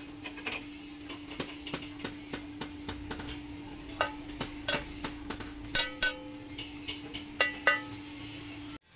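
Light metallic clinks and taps of steel pieces handled against a steel plate and each other, sparse at first, then louder with short ringing from about four seconds in, over a steady low hum. All sound cuts off suddenly near the end.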